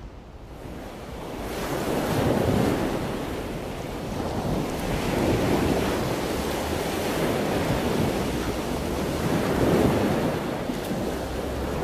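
Wind blowing across the microphone mixed with the wash of surf on a sandy beach, a steady rushing noise that fades in over the first couple of seconds and then swells and eases every few seconds.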